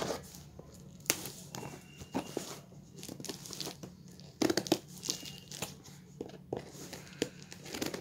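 Scissors snipping and cutting through packing tape on a cardboard box, with irregular snips and the crinkle and tearing of the tape.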